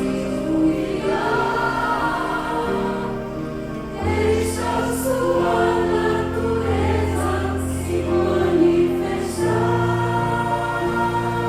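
Music: a choir singing held chords over a steady bass line.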